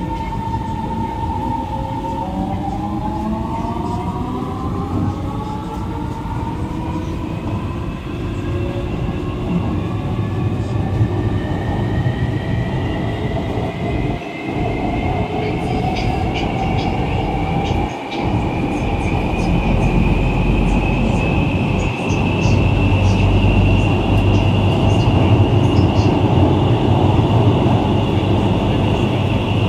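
Siemens-Adtranz Type A1 metro train's GTO-VVVF traction inverters and motors accelerating away from a station, heard from inside the car. A set of whining tones holds steady, jumps to a new pattern about two seconds in, then rises steadily in pitch, under a low rumble of wheels on rail that grows louder near the end.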